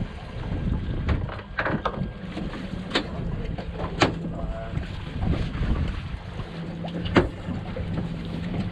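Wind buffeting the microphone over the low, steady rumble of a boat on open water, with a faint low hum coming and going. A few sharp clicks stand out, three of them at wide intervals.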